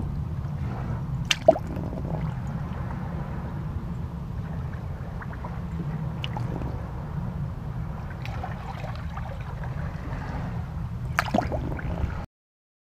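Seawater lapping and dripping in a rock crevice at the shoreline, over a steady low rumble; a sharp drip about a second and a half in and a short cluster of splashes near the end, then the sound cuts off.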